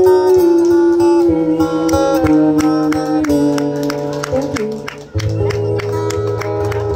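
Live acoustic guitar with a woman singing into a microphone, holding a long note that slides downward. The music briefly drops out about five seconds in, then comes back in.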